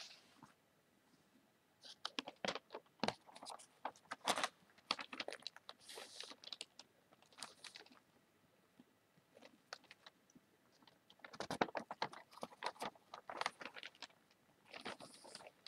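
Newspaper being handled and crinkled by hands, rustling and crackling in several short flurries with quiet gaps between.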